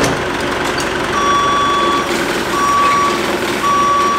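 Caterpillar forklift's backup alarm beeping, three long beeps about a second and a half apart, over the forklift's engine running.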